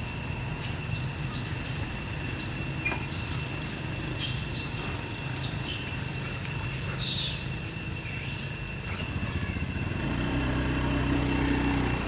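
Steady outdoor background noise: a low rumble with two constant high-pitched tones and scattered faint chirps and ticks. A low hum swells near the end.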